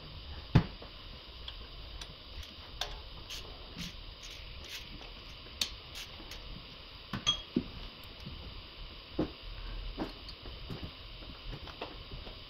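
Scattered light clicks and knocks of hands working plastic hoses, clips and connectors in an engine bay, over a steady faint hiss; the sharpest knock comes about half a second in, with a small cluster around seven seconds.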